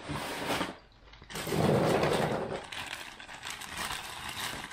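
Handling noise of someone gathering small parts: rustling and light clinking in two bursts, the second and louder one from about a second and a half in.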